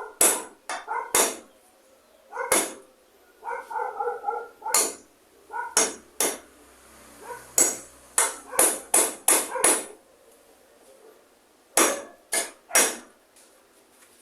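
Hammer strikes, about sixteen sharp blows in uneven groups, typical of nailing during a kitchen repair. A dog barks in short bursts between the blows, near the start and again around the middle.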